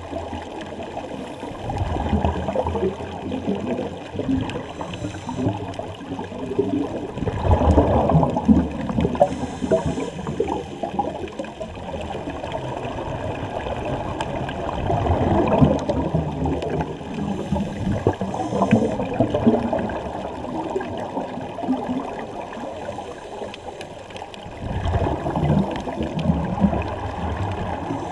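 Scuba diver's exhaled bubbles gurgling past an underwater camera housing, heard as louder muffled bursts about every six to ten seconds over a steady underwater rush.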